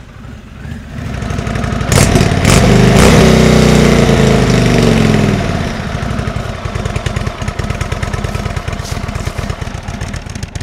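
Indian Springfield Dark Horse's V-twin engine: it grows loud as the bike rides past about two seconds in, with its pitch falling away, then settles to a steady, fast, pulsing idle.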